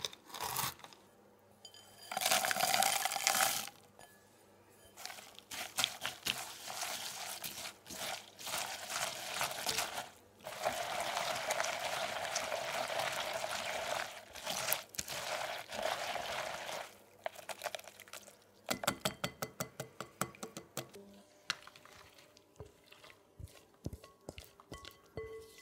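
A chef's knife chopping pecans on a wooden board at first, then a long stretch of a utensil stirring chopped pecans into a sticky filling in a glass bowl. Near the end the thick pecan filling is scraped and poured from the bowl into a pastry-lined tart ring, with a run of quick small clicks.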